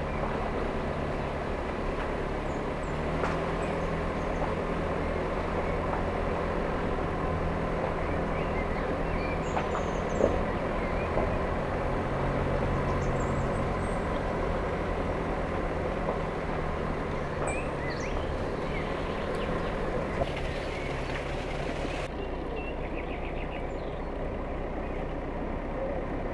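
A car driving along with steady engine and road noise, the engine's low hum shifting in pitch now and then.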